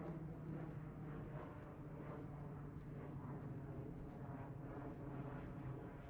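Steady low hum of a distant engine, with soft footsteps on a forest trail at a walking pace, about one every 0.7 seconds.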